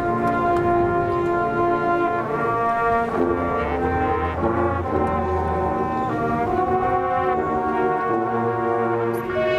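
Marching band brass playing slow, held chords that shift every second or so, with low brass bass notes underneath.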